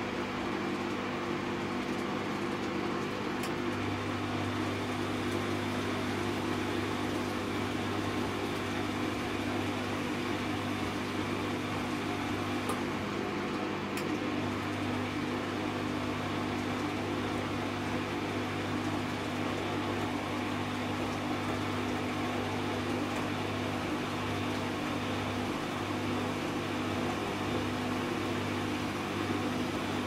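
Bosch Maxx 5 front-loading washing machine turning its drum in a wash cycle: a steady motor hum, with laundry tumbling in water. The hum strengthens a few seconds in as the drum picks up.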